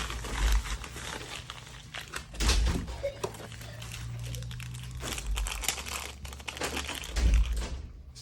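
Packaging being unwrapped by hand, crinkling in several bursts about every two seconds.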